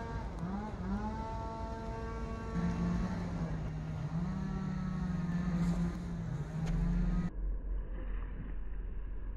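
A motor vehicle's engine drone, rising in pitch twice in the first second as it accelerates, then holding a steady note. It cuts off suddenly about seven seconds in, leaving only a low rumble.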